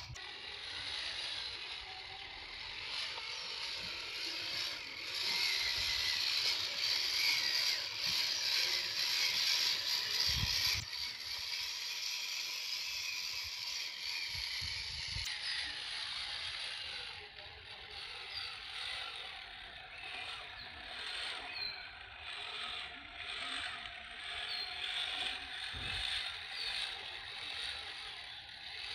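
Electric motor and gears of a 1/10 scale RC Jeep crawler whirring steadily as it crawls over rocks and dirt, the sound shifting abruptly twice where clips are cut together.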